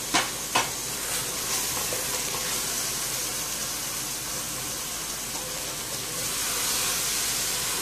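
Spinach and chickpea filling sizzling in a stainless steel pot as a wooden spoon stirs it, a steady hiss that swells a little near the end. Two sharp knocks of the spoon on the pot come just after the start, about half a second apart.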